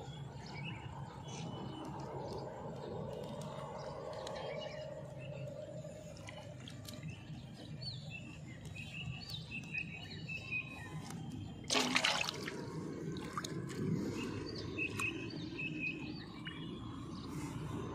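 Small birds chirping on and off over a steady low outdoor background. About two-thirds of the way through comes one brief loud noise, a bump or splash.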